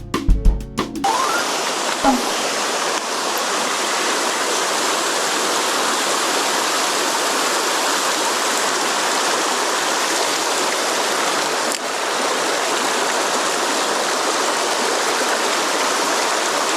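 Mountain stream water rushing steadily. Percussive music cuts off about a second in.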